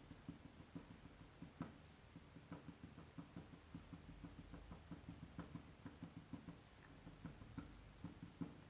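A marker drawing on paper: faint, quick, irregular taps and short strokes as lines are drawn.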